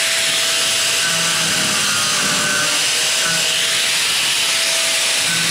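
A power tool running steadily: a loud, even hiss.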